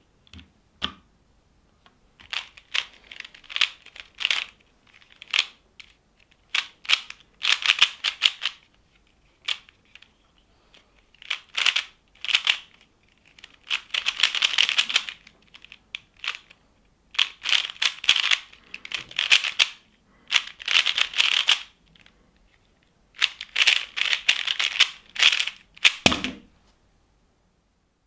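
MoYu HuaLong 3x3 speedcube being turned fast by hand: bursts of rapid clicking and rattling layer turns broken by short pauses. Near the end comes one low thump as the hands come down on the Stackmat timer to stop it.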